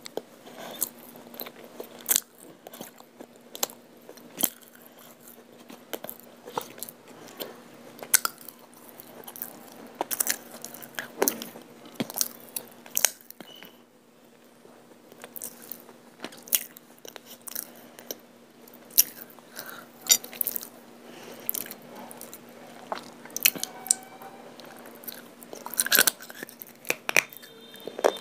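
Close-miked biting and chewing of white clay chunks coated in wet multani mitti (Fuller's earth) paste: irregular sharp crunches with softer chewing between them, and a short lull about halfway through. A faint steady hum runs underneath.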